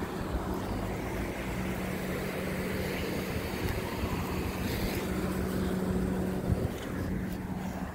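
Road traffic: cars passing on a street, swelling in the middle and easing off near the end, over a steady low hum.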